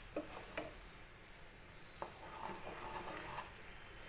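Faint stirring of sugar syrup in a cooking pan, with a few light knocks and clicks of the stirring spoon against the pan and a soft scraping, clattering patch about two to three seconds in.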